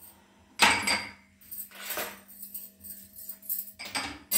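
Metal kitchen utensils clinking and clattering in a few separate bursts, the loudest a little under a second in, over a faint steady hum.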